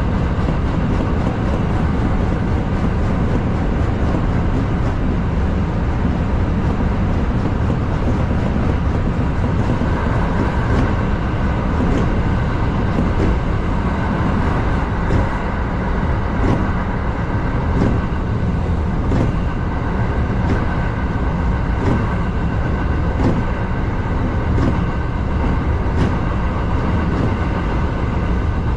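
Kintetsu 7000 series subway train running through a tunnel: a steady rumble of wheels on rail and running gear. From about a third of the way in, the wheels click over rail joints about once every second and a half.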